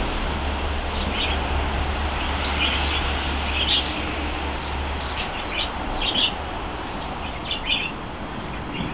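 Small birds chirping in short high calls about once a second over a steady background hiss. A low hum drops out about halfway through.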